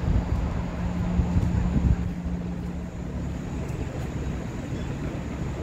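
Downtown street traffic noise: a low rumble of vehicles, with a steady engine hum that fades out about two seconds in.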